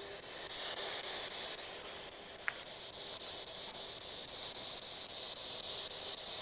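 Steady hiss of recording noise, with a single short click about two and a half seconds in.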